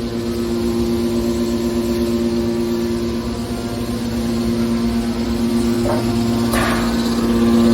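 Factory machinery, such as a scrap-metal baler's motor and pump, running with a steady hum. A short hiss or clank comes about six seconds in and again about half a second later.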